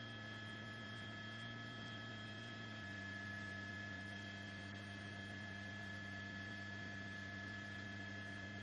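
Steady electrical hum and hiss with several constant whining tones, the lower ones shifting slightly about three seconds in.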